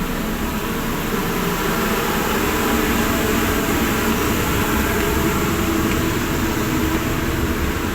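Steady drone of a RORO ferry's engine machinery, an even mechanical noise with a low rumble underneath.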